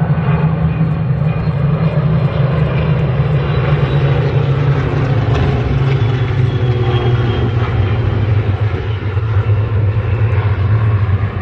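A formation of about a dozen piston-engined warbirds passing over the airfield: many engines blend into one loud, steady drone, and a few fainter pitches sag slightly as the aircraft go by.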